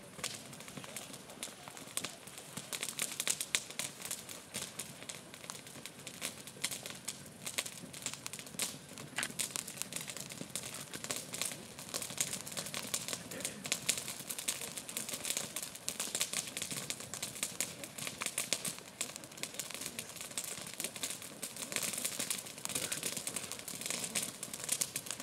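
Freshly lit bonfire crackling as its kindling catches, a dense irregular run of small snaps and pops.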